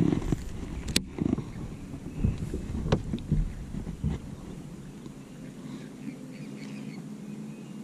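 Handling noise from a baitcasting rod and reel in a boat: low knocks and two sharp clicks in the first three seconds, then a faint steady hum.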